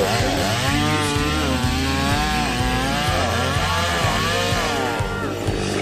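Two-stroke chainsaw cutting through a fallen tree trunk. The engine pitch rises and falls again and again as the throttle is worked and the chain bites into the wood, and it drops away near the end.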